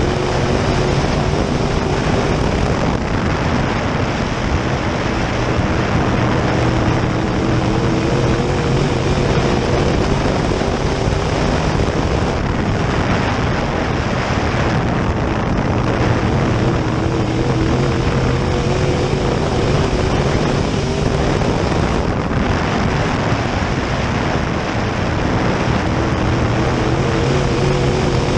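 An open-wheel modified race car's V8 engine running hard at racing speed, heard from inside the open cockpit over a constant rush of wind. The engine pitch wavers up and down slightly as the car laps the dirt oval.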